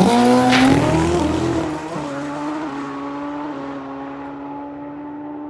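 Drag racing motorcycle launching off the line and pulling away down the strip. Its engine note climbs steeply for the first second or so, then holds steadier with a few small steps, growing fainter and duller as the bike gets farther away.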